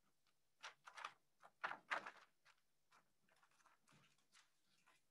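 Faint rustling and handling of paper documents: a few short scuffs in the first two seconds, then near silence.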